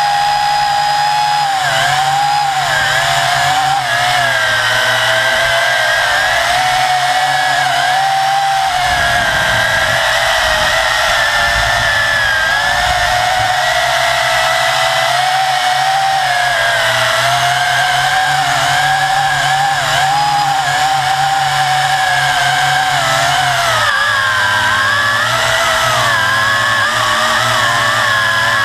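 V262 quadcopter's electric motors and propellers whining steadily in flight, heard close from the camera mounted on the craft, the pitch wavering up and down as the throttle changes. A low rumble joins in for a few seconds about a third of the way in.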